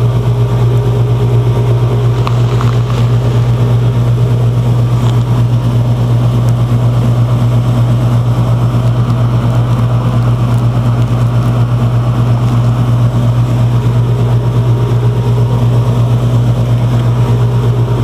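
Air conditioner's outdoor condensing unit running, a loud steady low hum that does not change.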